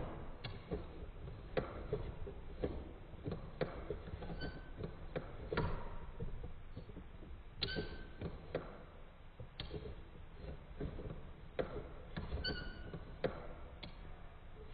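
Lego horizontal steam engine model turned slowly by its hand crank: plastic parts give irregular light clicks about once a second, with a few short squeaks.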